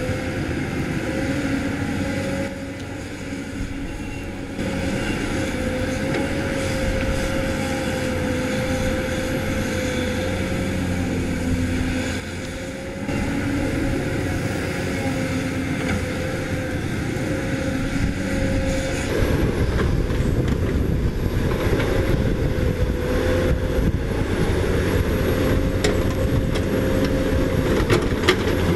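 CAT 320D hydraulic excavator running steadily while digging: diesel engine note with a constant hydraulic pump whine. The note drops briefly twice. It gets louder about two-thirds of the way in, with occasional sharp clanks.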